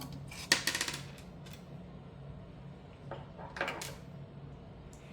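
Two short bursts of small metal clicking and rattling, the louder about half a second in and another around three and a half seconds, as screws and a screwdriver are handled while taking out a graphics card's anti-sag bracket mount. A faint low hum runs underneath.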